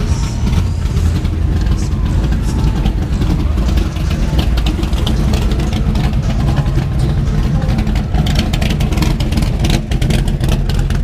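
A car's engine and exhaust running at low speed with a steady low rumble, heard close up as the car creeps along.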